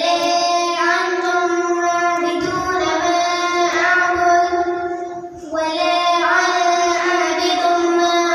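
A child singing long held notes in a slow melodic line, with a short break about five seconds in.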